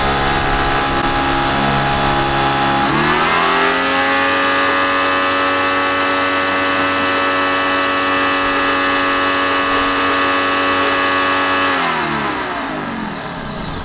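TEANDE 3800 PSI electric pressure washer running and spraying, with a steady motor-and-pump whine. About three seconds in the pitch rises to a higher steady whine, and shortly before the end it winds down and stops.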